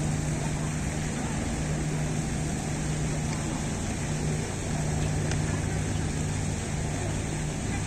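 Steady low drone of a boat engine over wind and choppy harbour water.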